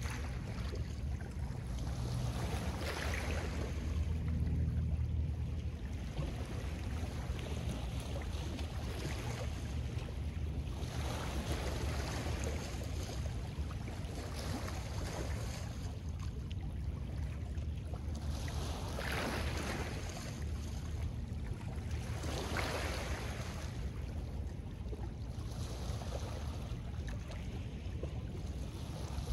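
Small lake waves washing onto a pebble-and-rock shore, swelling and fading every several seconds, over a steady low rumble.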